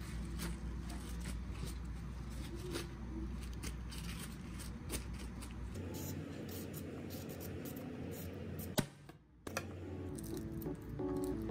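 Kitchen paper towel rustling and crinkling as blocks of tofu are pressed and patted dry. About six seconds in this gives way to a hand-held vegetable peeler scraping along a carrot, with small scattered clicks over a steady low hum.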